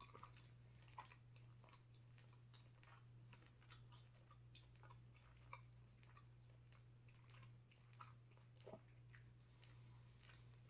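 Near silence: faint, irregular soft mouth clicks of someone chewing tough pork with the mouth closed, over a low steady hum.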